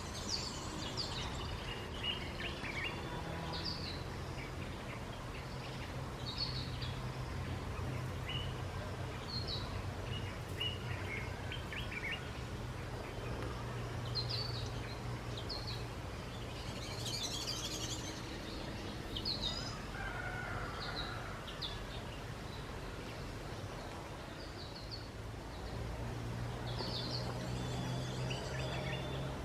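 Outdoor ambience of scattered short bird chirps and calls, with no one bird species clear, over a steady low hum that gets louder near the end.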